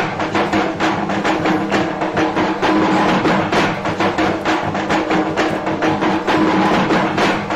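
Loud music with a fast, steady drum beat, played over a large stack of loudspeakers for a dancing crowd.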